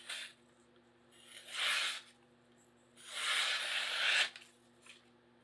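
Daovua Chinese chef knife slicing down through a hanging sheet of paper in three strokes, each a papery rasping hiss: a brief one at the start, a half-second one about a second and a half in, and a longer one of over a second about three seconds in. The edge is sharp, cutting the paper through.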